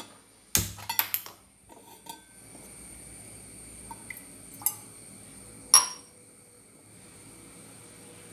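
A stainless steel pot clanks onto a gas stove's grate about half a second in. Water is then poured into it in a soft steady stream, and a sharp ringing metal-on-metal clink comes near the end of the pour.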